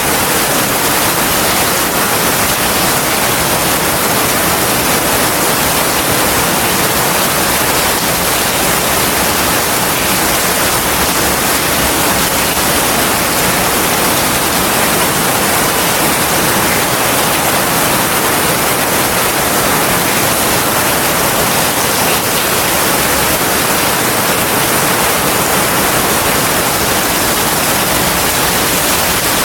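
Heavy rain falling steadily, a dense, even hiss without breaks.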